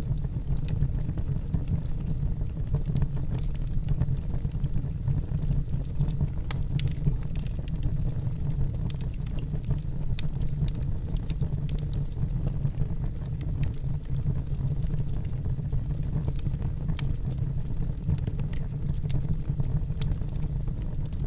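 Wood campfire burning steadily, with a low rumble under scattered crackles and pops from the burning wood.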